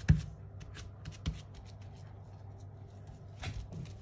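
Hands working semolina cake batter in a small baking tin: light rubbing and tapping, with a sharp knock just after the start and softer knocks about a second in and near the end.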